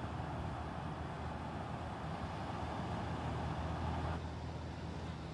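Wind rumbling on the microphone over the steady wash of Lake Michigan surf on the shore; a higher hiss in the mix cuts off about four seconds in.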